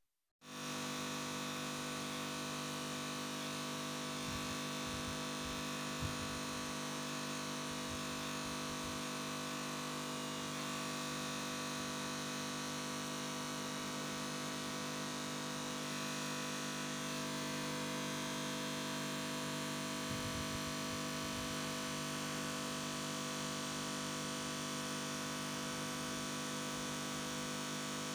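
Steady electrical hum made of many fixed tones over a hiss. A few faint low bumps come about four to six seconds in and again about twenty seconds in.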